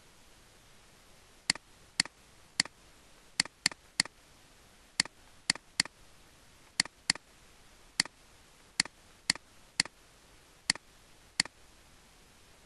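Computer mouse button clicking: about seventeen sharp single clicks at uneven intervals, one for each pen stroke as letters are drawn freehand with the mouse.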